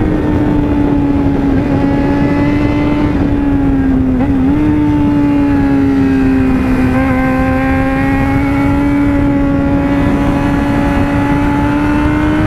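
Yamaha FZ6N's inline-four engine running at a steady cruise, its note sagging slightly midway and climbing again near the end, with a brief wobble in pitch about four seconds in. A steady rush of wind over the microphone runs underneath.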